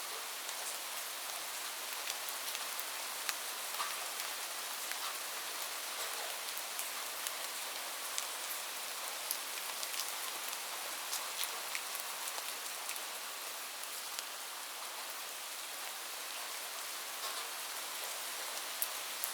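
Light rain falling steadily: an even hiss with many small, scattered drop ticks.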